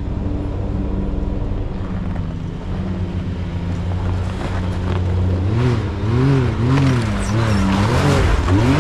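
Can-Am Maverick X3 UTV engine under load as it climbs an icy rock obstacle. It runs steadily at first, then from about halfway the revs rise and fall repeatedly while the tires scrabble for grip on the ice.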